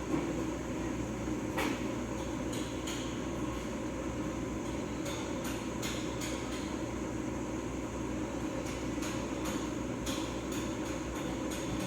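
Scattered light clicks and knocks, irregularly spaced, over a steady background hum.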